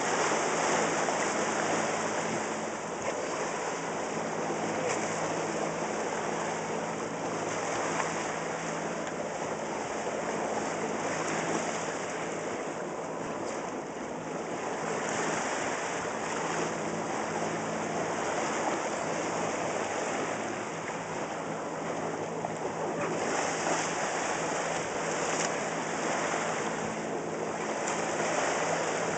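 Water rushing and splashing along the hull of a moving boat, with a steady low hum underneath from the boat's motor.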